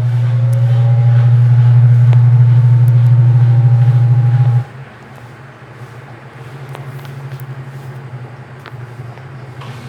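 Midea 12 kg washing machine's motor driving the drum: a loud low hum with a slowly rising whine for about five seconds, which cuts off suddenly. A quieter hum picks up a second or so later.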